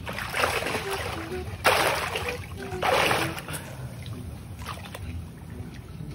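Water splashing and sloshing as a spearfishing diver moves just under the surface among mangrove roots: three splashes in the first few seconds, then softer sloshing.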